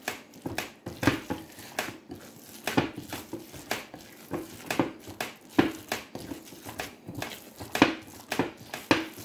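Hands kneading and squeezing raw ground-beef stuffing in a glass bowl, making a series of short, irregular sounds about one or two a second.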